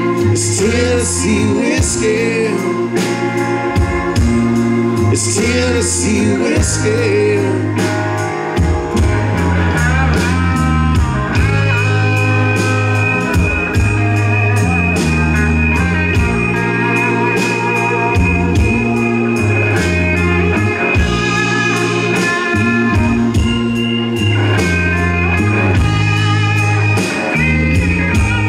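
A live band plays a song: electric guitar, bass guitar, drum kit and keyboard. Bass and drums keep a steady, repeating beat. Over them, a lead line bends in pitch through the first several seconds, and a held high note joins about eleven seconds in.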